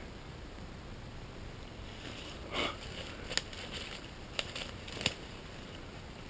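Someone wading into shallow water: a few splashing, sloshing steps, with several sharp clicks in the second half.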